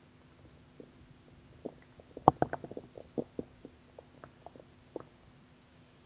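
A hungry stomach growling: a run of short gurgles and pops begins under two seconds in, comes thickest and loudest about two and a half seconds in, then thins out into scattered gurgles.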